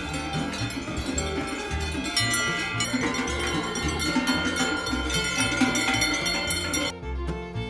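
Many large cowbells clanging irregularly as a herd of Aubrac cows walks, over background music with a steady bass beat. Near the end the bells drop out, leaving only the music.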